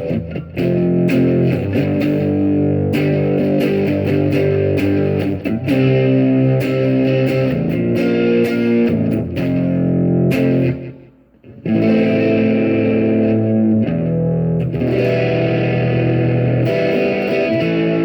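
Electric guitar (Xavier PRO830 Tele-style) played on its front (neck) humbucker through a Spark amp, strumming and letting chords ring with a light overdrive. The playing breaks off briefly about eleven seconds in, then carries on.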